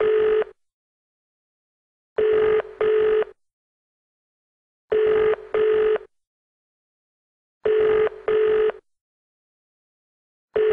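British-style double ringing tone heard down a telephone line, as a caller hears it while waiting: pairs of short rings repeating about every three seconds. Nobody picks up.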